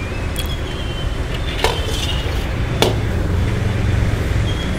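Metal ladle knocking against a large metal wok as it stirs a thin gravy: a few sharp clinks about a second apart, over a steady low rumble.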